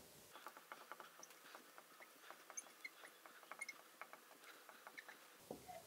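Faint marker strokes on a glass lightboard: scattered light ticks with a few tiny high squeaks, otherwise near silence.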